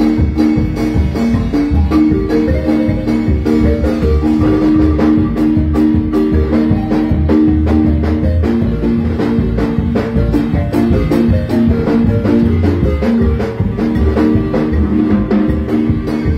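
Marimba band playing dance music: quick runs of mallet notes on the marimba over a bass line and a steady drum beat.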